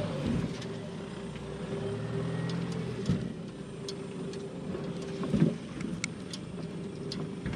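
Nissan Navara PRO-4X's 2.3-litre twin-turbo diesel running at low revs as the ute crawls slowly over sand mounds, heard from beneath the vehicle, with a steady drivetrain hum. A few knocks from the running gear as the rear axle articulates, the loudest about five seconds in.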